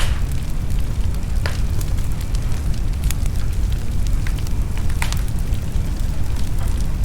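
Wood fire burning in a fireplace: a steady low rumble of the flames with scattered sharp crackles and pops, a louder pop about a second and a half in and another about five seconds in.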